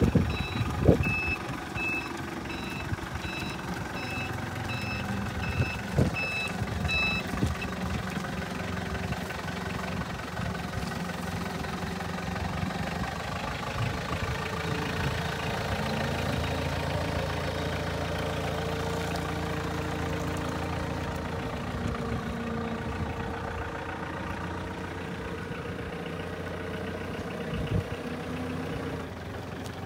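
Cat DP25N diesel forklift running, its reversing alarm beeping about twice a second for the first seven seconds or so. Two sharp knocks come about one and six seconds in, and the engine speeds up about halfway through and drops back near the end.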